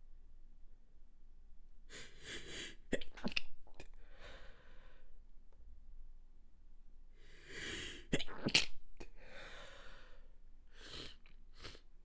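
A person's stifled sneezes, twice: a breathy inhale, then short, sharp, held-back sneeze bursts, each followed by a breath out. The first comes about three seconds in and the second about eight seconds in, with a couple more small bursts near the end.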